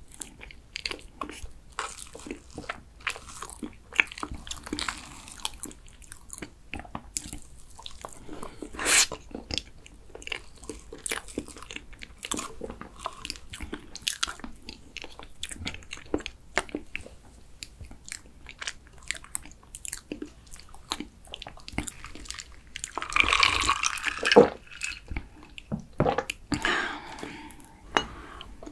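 Close-miked eating of soft cream sponge cake with a spoon: wet chewing and lip smacks with frequent small clicks of the spoon and the clear plastic cake box. About three-quarters of the way through comes a louder stretch of rustling and scraping, and another shortly before the end.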